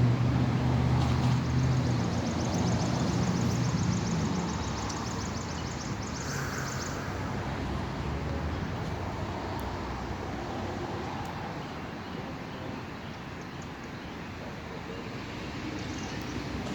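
A vehicle's engine running close by at first, then fading over the first several seconds, leaving steady outdoor traffic noise.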